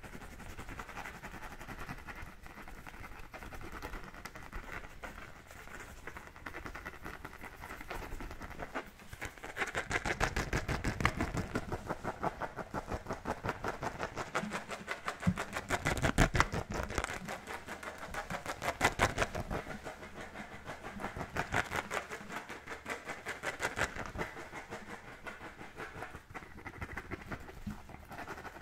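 Fingernails scratching the pebbled surface of an American football in fast, rhythmic strokes, growing louder about ten seconds in.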